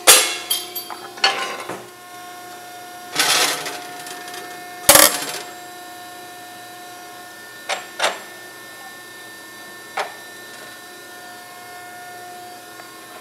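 Scotchman 5014-ET ironworker running with a steady hum while steel angle iron is worked in it: clanks of steel, a sharp metal clang about five seconds in that rings for about two seconds, then a few light clicks.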